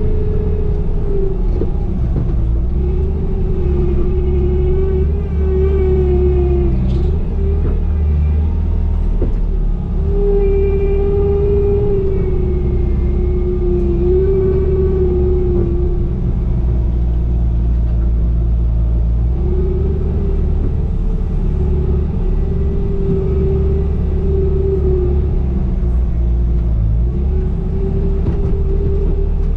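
Bobcat E35 mini excavator's engine running steadily under load, with a whine that wavers up and down in pitch as the machine works, fading out for a few seconds at a time.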